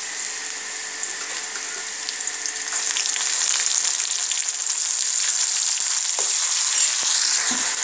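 Ground masala paste and sliced onions frying in hot oil in a wok, sizzling steadily; the sizzle grows louder about three seconds in. A steel spoon stirs through it with a few light knocks against the pan near the end.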